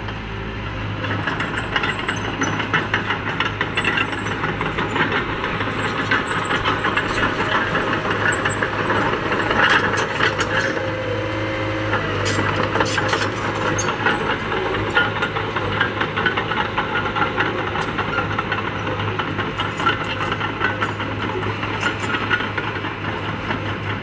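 Small crawler bulldozer's diesel engine running steadily under load with a rapid clatter as it pushes dirt.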